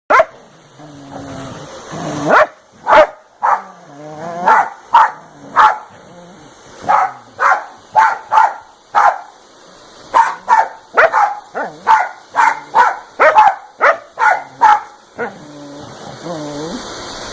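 A dog barking at a vacuum cleaner: sharp barks in quick runs, with long wavering low grumbling whines between the runs near the start, in the middle and near the end.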